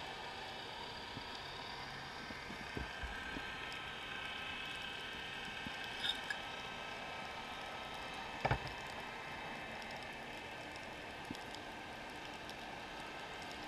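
Underwater ambience picked up by a camera in its housing: a steady hiss with faint steady whines, and a few short clicks and knocks, the loudest a double knock about eight and a half seconds in.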